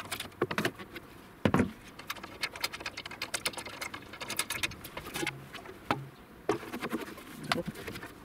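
Plastic rain diverter being handled against the metal downpipe ends: a string of clicks, knocks and scrapes, with one sharper knock about a second and a half in.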